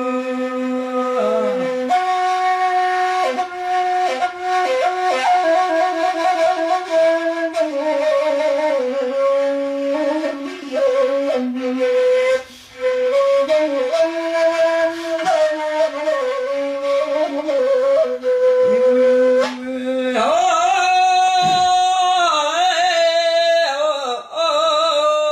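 Gasba, the Maghrebi end-blown flute, here a metal pipe, playing an ornamented salhi melody line; about twenty seconds in a woman's singing voice comes in.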